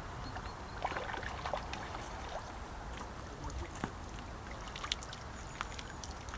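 Water splashing and dripping from a carp landing net as it is lifted out of the river with a caught fish, with scattered light clicks and ticks.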